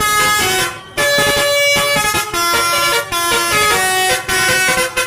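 Bus telolet ('basuri') multi-tone horn playing a tune: a loud run of horn notes stepping up and down in pitch, broken by a few short pauses.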